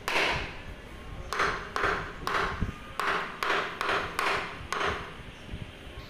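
Wood chisel cutting into the edge of a wooden door frame to make the recess for a lock plate. About nine short strokes, each dying away quickly: one at the start, then a quick run from about a second and a half in to near the end.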